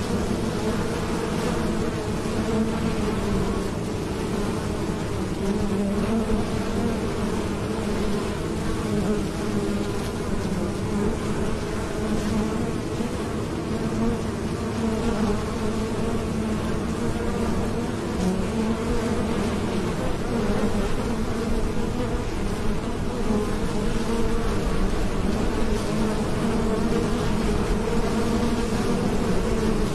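A crowd of honeybees buzzing at the hive entrance as they fly in and out: a steady, many-voiced hum of wingbeats that wavers slightly in pitch.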